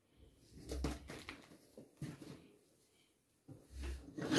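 Handling noises of chainsaw parts: a metal flywheel being turned over in the hands and set down among the other parts, with soft rustling and a few light knocks, and a dull thump shortly before the end.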